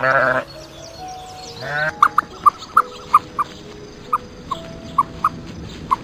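A sheep bleats loudly at the start and again briefly, rising in pitch, just before two seconds in. Then an ostrich chick peeps in short, sharp calls, two or three a second, over soft background music.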